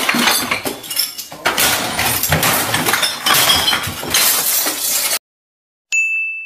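Crashing and clattering with glass breaking, as things are smashed, stopping abruptly about five seconds in. Near the end comes a single bright chime that rings and fades.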